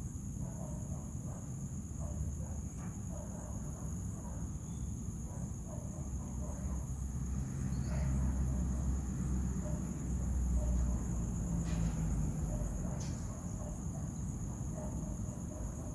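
Night insects, likely crickets, trilling steadily in a continuous high-pitched chorus, over a low rumble that grows louder around the middle.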